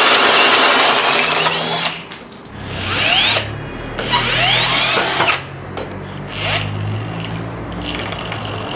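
Milwaukee M18 Fuel hammer drills boring through a wooden plank with a large wood bit. About two seconds in, a Milwaukee M18 drill drives a long screw into a wooden log in several short spin-ups, its motor rising in pitch each time the trigger is squeezed.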